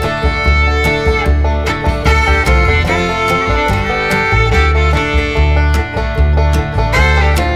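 Upbeat bluegrass-style background music with fiddle, banjo and guitar over a steady beat.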